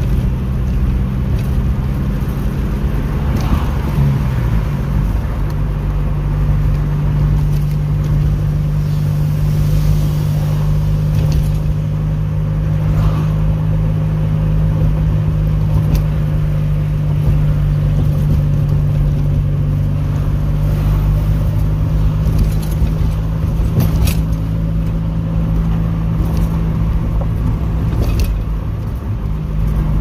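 Car engine and road noise heard from inside the cabin while driving, a steady low hum that shifts in pitch about four seconds in.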